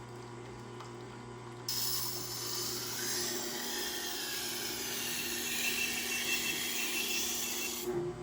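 Tormek water-cooled sharpener's motor hums steadily. About two seconds in, a MAC chef's knife edge is pressed to the wet turning grindstone, adding a loud, even hissing grind that lasts about six seconds and stops just before the end. This is sharpening the second side of the blade to raise a burr.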